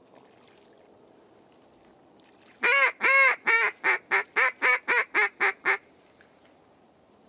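A duck call blown in a greeting-call series to draw in passing ducks: about eleven quacks starting a little over two seconds in, the first two long and drawn out, the rest shorter and coming faster.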